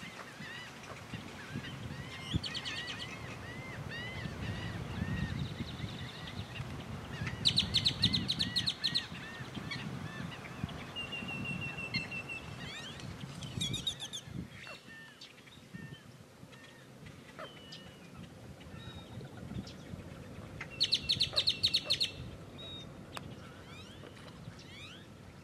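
Black-necked stilts calling: four bursts of rapid, sharp, repeated notes, the loudest a third of the way in and again near the end. Softer chirps from other birds repeat between the bursts, over a low rumble.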